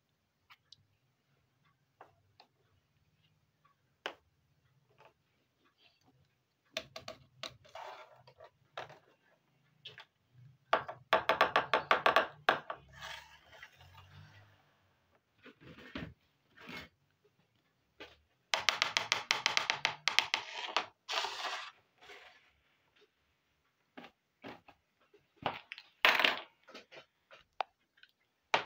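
Small plastic toy kitchen pieces clicking and clattering as they are handled and set down, in several bursts of quick clicks with quiet gaps between.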